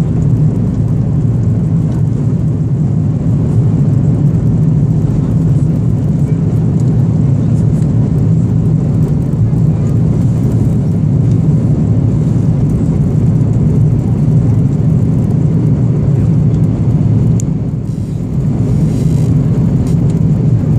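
Steady cabin noise of an Airbus A330-223 climbing after takeoff: its two Pratt & Whitney PW4000-series engines and the rushing airflow, heard from a window seat over the wing as a deep, even rumble. It dips briefly near the end.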